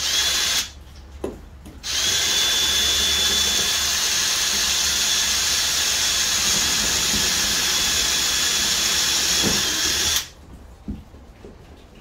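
Cordless drill boring a corner hole through a boat's deck: a brief burst at the start, a pause, then one steady run of about eight seconds with a constant high motor whine that stops shortly before the end, followed by a single knock.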